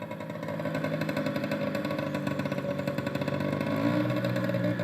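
A recorded engine running steadily, its pitch rising about four seconds in, played back from a sound-effects recording.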